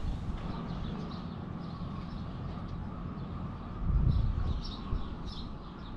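Birds chirping in short repeated calls over a steady low rumble, which swells louder for a moment about four seconds in.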